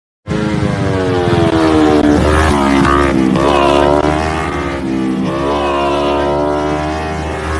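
Motorcycle engine at speed on the road, starting suddenly and revving hard, its pitch rising and falling again and again as it accelerates.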